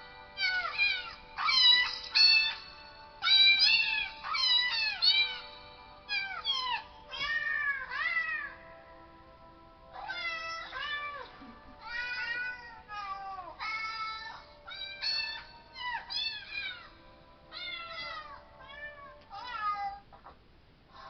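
Novelty ringtone of a cat's meows set to a tune: a long run of meows that bend in pitch, over held backing notes. It breaks off briefly around nine seconds in and carries on a little quieter.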